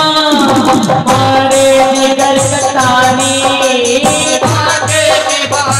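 Live devotional bhajan music, loud through a sound system: a sustained melody with gliding notes over a steady percussion beat.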